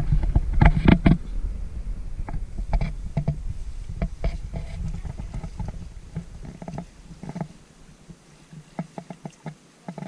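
Wooden canoe being paddled: irregular knocks of the paddles against the hull and splashes of the blades in the water, over a low rumble on the microphone that is loudest at the start and dies away about three-quarters of the way through.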